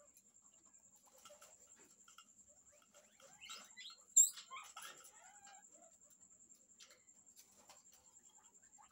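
Teddy guinea pigs of a mating pair scuffling on a plastic mesh cage floor with small squeaks, busiest around the middle. There is a sharp click about four seconds in.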